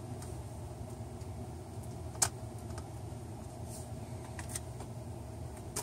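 Light plastic clicks and taps as a laptop LCD panel is handled and fitted into the display lid, with one sharp click about two seconds in and a couple of fainter ones near the end, over a steady low hum.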